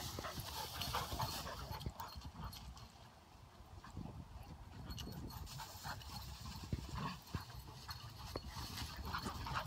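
Irregular footfalls and rustling of tall dry grass being pushed through, with no voices.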